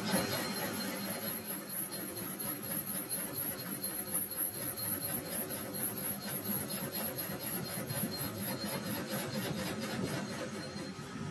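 Metal lathe facing a large spinning steel part with a cutting tool: a rough, steady cutting and machine noise with a thin, very high whine running through it, growing quieter over the last few seconds.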